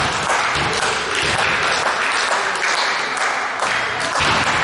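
Spectators in a basketball gym clapping steadily.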